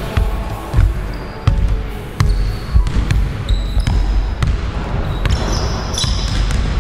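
Basketball dribbled on a hardwood gym floor: a string of thumps at an uneven pace. Short high squeaks of sneakers on the floor come in between.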